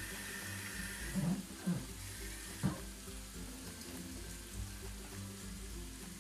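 Chicken and vegetables sizzling in a pan just after water is added, the hiss strongest in the first couple of seconds. A utensil knocks against the pan three times in the first three seconds.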